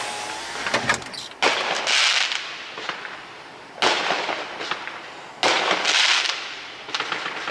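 Aerial fireworks bursting, three times, each burst followed by a second or two of crackling fizz from crackling-star shells that fades away.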